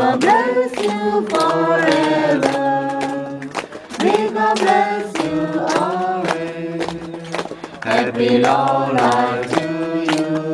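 A group of voices singing together in long held notes, over a steady beat of sharp strikes about three a second.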